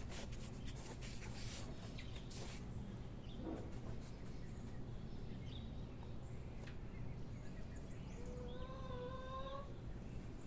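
Light rustling and clicking of hands working soil and scallion seedlings over a steady low hum. About eight seconds in, an animal gives one long whining call, rising slightly, for about a second and a half.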